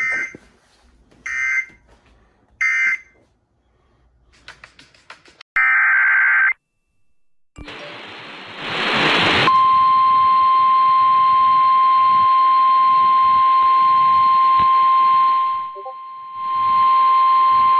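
Weather radio alert signals: three short bursts of two-tone digital data tones, one after another, then a brief tone, then radio static hiss. About halfway through, the long, loud steady warning alarm tone comes in over the static, marking the start of a new warning.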